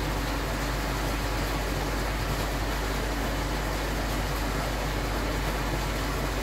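Steady low mechanical hum under a constant even hiss, the sound of room equipment running.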